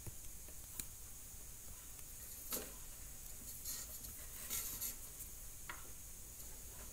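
A few faint taps and light handling noise as backlight-tester probes are touched to the contacts of LED backlight strips, over a quiet steady background.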